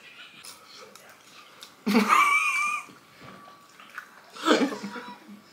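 A person's high-pitched wavering whimper about two seconds in, then a sharp breath a couple of seconds later: a reaction to the burn of super-spicy noodles.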